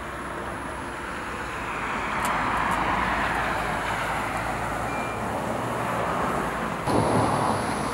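A road vehicle passing: its noise swells a couple of seconds in and slowly fades. Near the end a louder rush of outdoor noise comes in suddenly.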